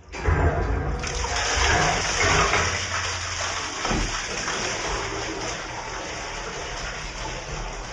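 A strong stream of water gushing and splashing, starting suddenly and then running steadily; it is the brew kettle being filled or emptied while the new element fittings are tested for leaks.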